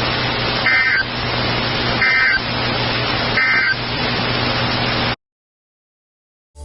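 Weather radio sending three short bursts of EAS/SAME data tones about a second and a half apart over steady receiver hiss and a low hum: the end-of-message code that closes the alert broadcast. The audio cuts off to silence about five seconds in.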